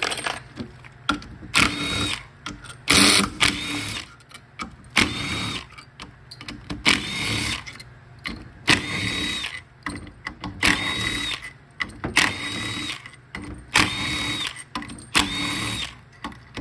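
Cordless power driver spinning the bolts out of an automatic-transmission valve body one after another: about ten short runs of a second or so, each with a steady motor whine, with brief pauses between them.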